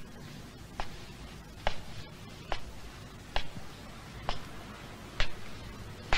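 Footsteps climbing stairs: seven sharp, evenly spaced steps, a little under one a second.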